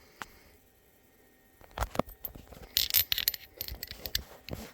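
Metallic clinks and rattles of hand tools and small parts being handled during a spark plug change, a run of sharp knocks starting nearly two seconds in.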